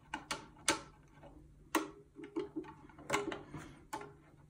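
Thin metal spoon stirring coarse coffee grounds into cold water in a glass mug, clinking irregularly against the glass, about a dozen clinks.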